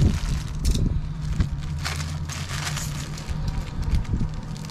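Clear plastic parts bag crinkling in short bursts as it is handled and cut open with a utility knife, over a low steady hum.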